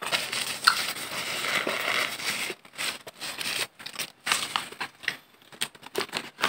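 Paper burger wrapper rustling and crinkling in fits and starts, with stronger crinkles near the end as hands take hold of it.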